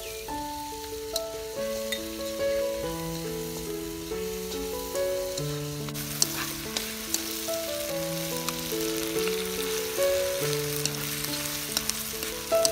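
Green beans sizzling as they stir-fry in a hot wok, with occasional light clicks of chopsticks against the pan, over background music with a simple melody.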